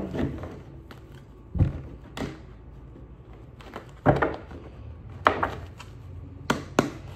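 Tarot cards being handled over a tabletop, with about half a dozen sharp knocks spaced unevenly a second or so apart.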